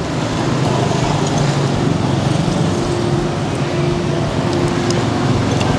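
Road traffic running close by: engines humming steadily over a dense rush of street noise, with no single vehicle standing out.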